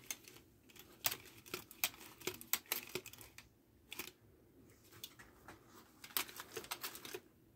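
Riveted copper finger plates and blades of a Freddy Krueger glove armature clicking and clinking in irregular light taps as the fingers are flexed, with a couple of short lulls partway through.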